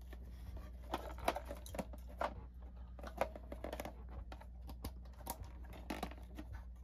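Scattered light clicks and taps of a plastic G scale caboose body and lid being handled and pressed into place.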